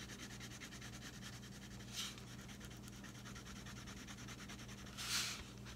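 Yellow wax crayon rubbing on paper in quick back-and-forth colouring strokes, a faint steady scratching. Two louder hissing rushes stand out, a short one about two seconds in and a longer one about five seconds in.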